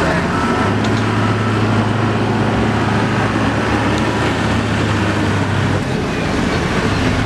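Heavy diesel engine of a wheel loader working under load as it pushes a bogged, fully laden dump truck through mud, a steady drone. The engine's steady note falls away about six seconds in.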